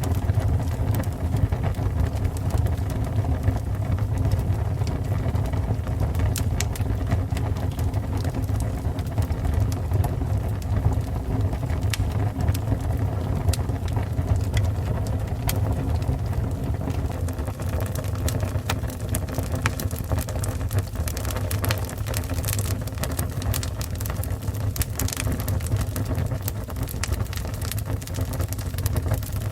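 Fire burning: a steady low roar of flames with irregular sharp crackles and pops, the crackles growing more frequent in the second half.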